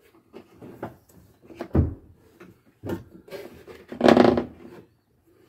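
Handling noises from a wooden boat console and steering helm being worked by hand: scattered knocks and light rattles, a heavy thump about two seconds in and a louder half-second noise a little after four seconds.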